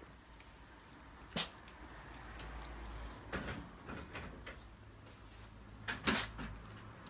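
Shiba Inu sneezing: a sharp, short sneeze about a second and a half in and a doubled one about six seconds in, with smaller sniffs between.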